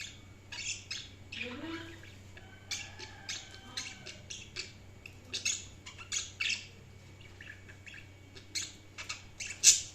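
Budgies chirping and squawking in short, irregular calls, with a low steady hum beneath; the loudest squawk comes near the end.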